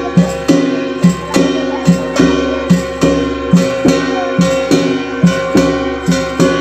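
Danda nacha folk music: dhol, nisan and tasa drums beating a steady, even rhythm of about two strokes a second, over held organ notes.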